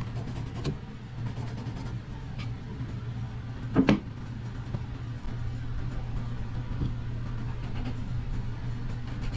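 A steady low hum, under faint scratches and taps of a pencil tracing around a drywall patch held against the wall. One brief, louder sound comes about four seconds in.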